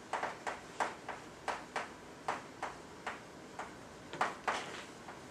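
Chalk writing on a blackboard: a string of sharp, irregular clicks as the chalk strikes and lifts off the board, about three a second, stopping shortly before the end.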